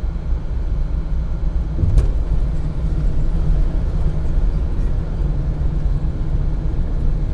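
Car on the move: steady low road and engine rumble with wind buffeting the microphone, and a single sharp click about two seconds in.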